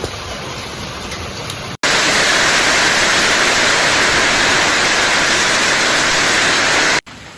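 Rushing water from storm flooding: a steady wash of noise. About two seconds in it cuts abruptly to a much louder, even rushing hiss, which stops suddenly just before the end.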